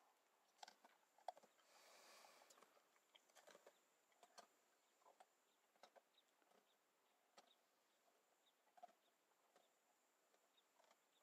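Faint irregular clicks and crunches of a dog eating from an enamel bowl, with faint high bird chirps in the second half.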